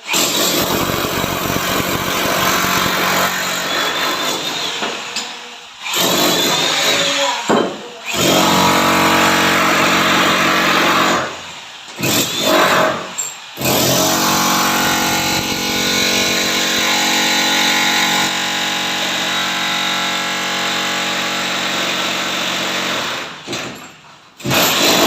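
A power tool's motor running under load in long runs, stopping and starting again about five times with short gaps between.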